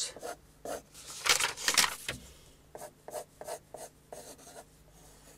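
Pencil lead scratching across paper in a run of short sketching strokes as an ellipse is drawn freehand; the loudest strokes come about a second in, followed by shorter, fainter ones.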